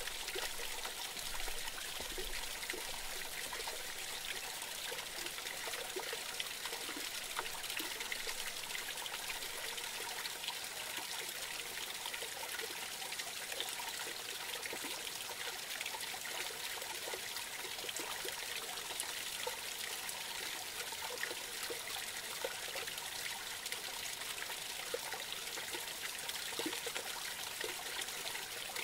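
Small forest stream trickling and splashing over a low cascade into a shallow pool, a steady water sound with small drips and plinks standing out.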